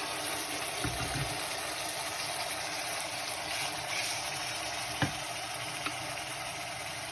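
Chicken livers sizzling in hot vegetable oil with onion and garlic in a pot, a steady frying hiss. There are a few knocks, the sharpest about five seconds in.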